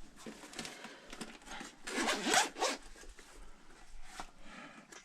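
Rasping, scraping handling noises, like a zipper being pulled or something rubbed, loudest about two seconds in.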